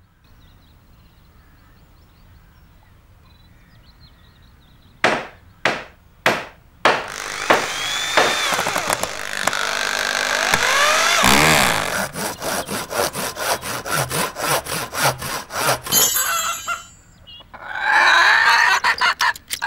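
Workshop sound effects of something being built: three knocks, then a long stretch of sawing with squeaky rising and falling tones over it, then a quick run of hammer-like knocks, about three a second, and a last burst of sawing near the end.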